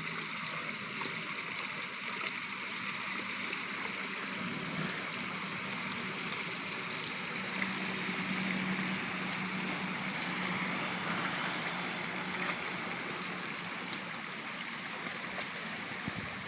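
Steady trickle and gurgle of running water at a small pond, with a faint low hum in the middle.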